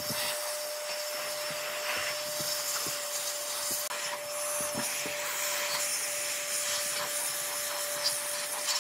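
Handheld electric blower running steadily: a rush of air with a constant motor whine. A few light knocks and rubs come from the wooden vase being turned on the table.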